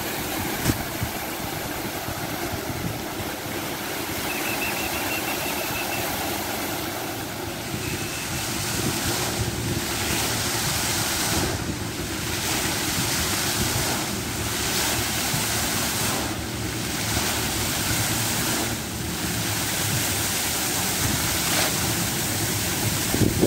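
Steady rushing splash of many fountain jets falling into a shallow pool, mixed with wind blowing across the microphone in a sandstorm.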